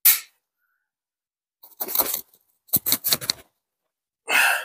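Wrench working at a seized nut on an engine's exhaust manifold stud: short, separate bursts of metallic clicking and scraping, with a louder burst near the end.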